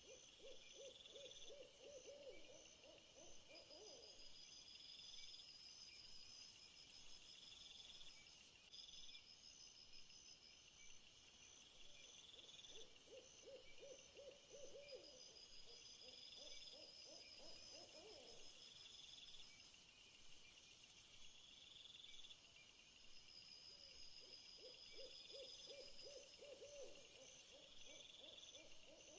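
A night-time chorus of high, pulsing insect chirps, with a low, quickly repeated hooting trill that comes three times, a few seconds each, about twelve seconds apart.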